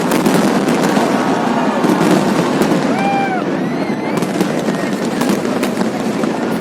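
Fireworks display: a steady loud din of crackling pops and bangs over the noise of a crowd, with a few short whistle-like tones about halfway through.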